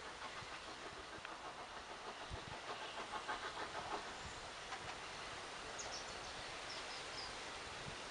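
Steam locomotive approaching slowly from a distance, heard faintly, with a regular rhythmic clatter for a second or so about a third of the way in.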